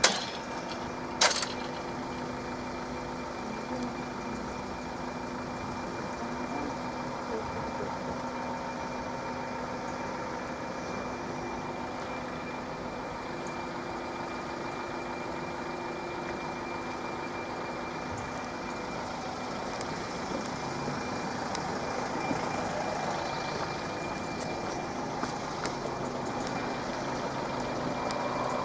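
Road vehicles waiting at a closed level crossing: engine idling noise with a steady hum, two sharp clicks right at the start, and the overall noise slowly building near the end.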